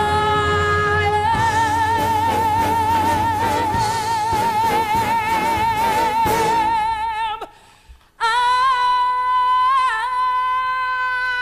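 A female singer belts a long, high held note with wide vibrato over a full orchestra. The note cuts off suddenly about seven seconds in, and after a brief silence she holds a second long vibrato note.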